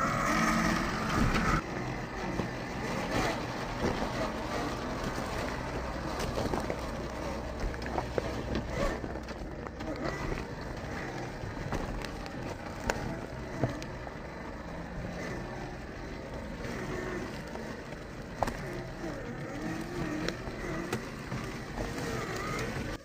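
RGT Rescue LC70 1/10-scale RC rock crawler's electric motor and drivetrain running as it crawls over loose rocks. Its tyres and the stones give frequent clicks and knocks throughout.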